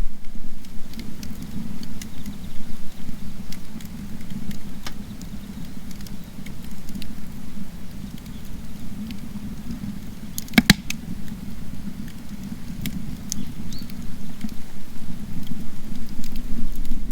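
Wood fire burning in a garden stove: a steady low rush with scattered crackles and pops, and one sharper pop about ten and a half seconds in.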